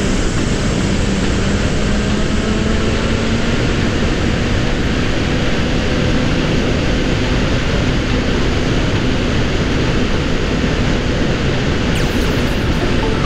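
Motorcycle riding at road speed: wind rushing over the camera's microphone, with the Kawasaki Ninja's engine humming steadily underneath, its pitch creeping slightly up.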